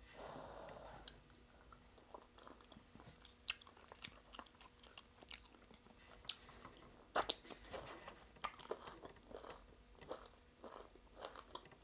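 Close-miked chewing and biting of food, with irregular wet clicks and crunches, the loudest about seven seconds in.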